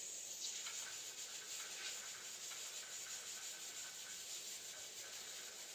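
Faint rustling and rubbing of a plastic piping bag squeezed in the hand as cream is piped out.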